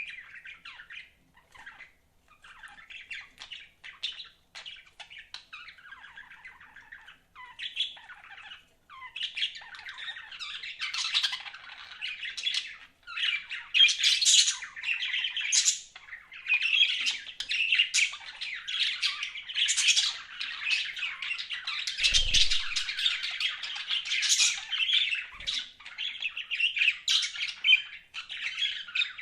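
Pet budgerigars chirping and chattering: scattered short chirps at first, building about ten seconds in to a nearly continuous mix of warbling chatter and sharp squawks. A brief low thump comes about 22 seconds in.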